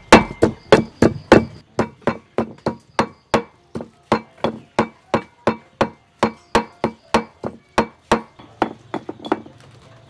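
A steady run of sharp knocks or chops, about three a second, louder in the first couple of seconds and stopping shortly before the end.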